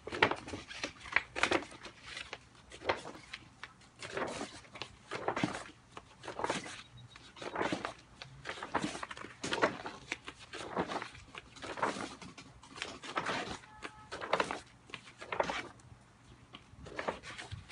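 Heavy pages of a large wallpaper sample book being flipped by hand, a swish and rustle of thick paper about once a second.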